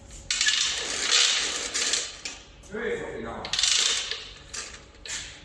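Compressed air hissing from a hose in two bursts, the first about two seconds long and starting suddenly, the second shorter, with metallic clinking between them.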